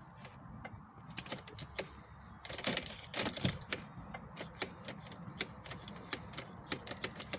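Irregular light clicks and taps, with a louder cluster of clatter about two and a half to three and a half seconds in.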